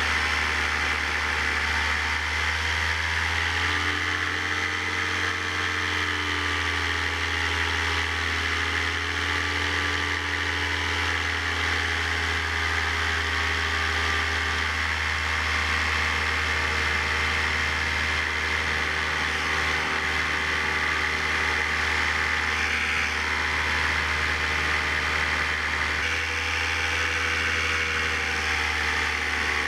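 Paramotor's two-stroke engine and propeller running steadily in flight. Its pitch rises and falls a few seconds in and again near the end as the throttle changes.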